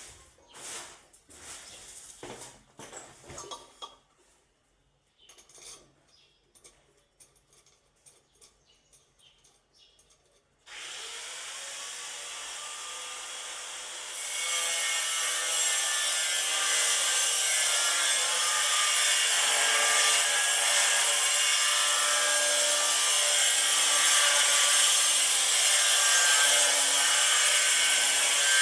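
Scattered light knocks and scraping, then a handheld power tool starts about ten seconds in and runs steadily. A few seconds after starting it gets much louder and harsher, as it bites into the material.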